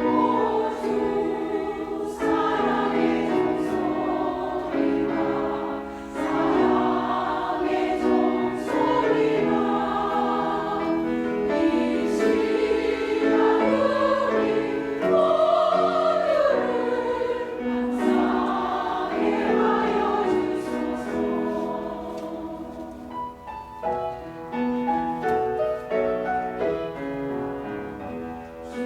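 Church choir singing a hymn, many voices together, easing into a softer passage about two-thirds of the way through.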